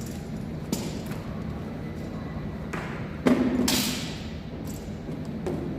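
A few knocks and thumps over a steady low background hum: a light knock about a second in, a louder sharp thump about three seconds in with a short rustling tail, and a smaller knock near the end.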